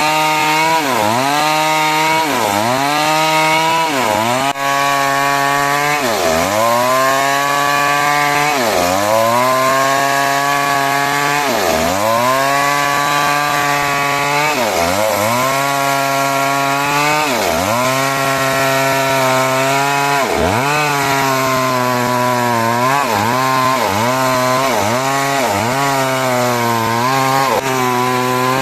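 Chainsaw cutting timber, its engine pitch dipping again and again as the chain bites into the wood and recovering between. The dips come faster near the end.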